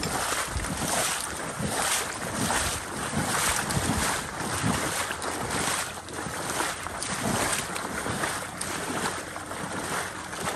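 Someone wading through shallow marsh water among tule reeds: rhythmic sloshing about twice a second, with reeds brushing past and wind on the microphone.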